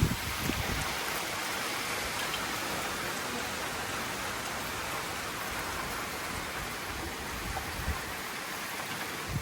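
Hurricane Beryl rain falling steadily, an even hiss of rain on surfaces.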